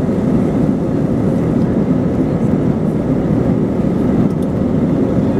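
Jet airliner on its take-off roll, heard from inside the cabin: the engines at take-off power and the wheels rumbling on the runway make a loud, steady, low noise.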